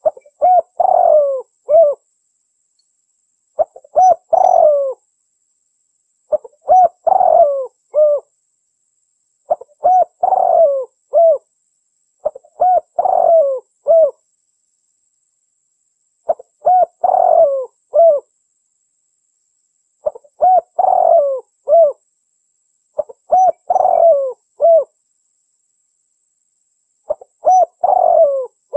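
Spotted dove cooing: nine phrases in a row, each a run of several short, low coos lasting about two seconds, repeated about every three to four seconds with silence between.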